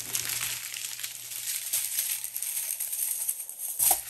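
Small plastic bags of diamond-painting drills being handled: the plastic crinkles and the tiny resin drills rattle inside. There is a sharper knock near the end.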